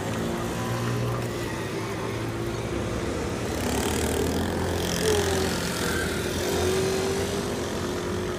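City street traffic: vehicle engines running nearby, their pitch wavering and rising and falling, over a steady hum of traffic.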